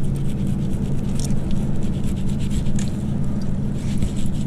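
A rockfish being scaled with a metal scaling tool: quick, irregular scraping strokes against the fish's scales. Under it runs a steady low engine hum.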